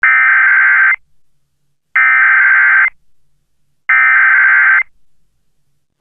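Emergency Alert System SAME header: three bursts of digital data tones, each about a second long with a second of silence between them. These bursts are the coded start of an EAS alert, which carries the event type, area and timing.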